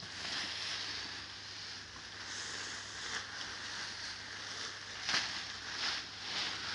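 Plastic tarpaulin sheet crinkling and rustling as it is dragged and shaken to spill loose material off it, with a few louder swishes in the second half.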